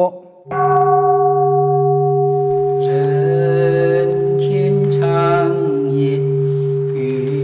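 Calm background music starts about half a second in: a sustained low drone with a steady ringing tone whose upper overtones fade over the first couple of seconds. A wavering melody line comes in about three seconds in and returns twice.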